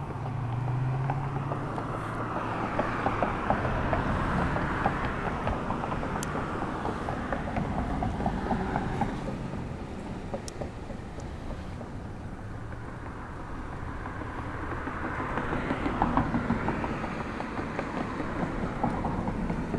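Road traffic crossing the bridge: tyre and engine noise swelling and fading twice, over a steady low rumble of wind on the microphone.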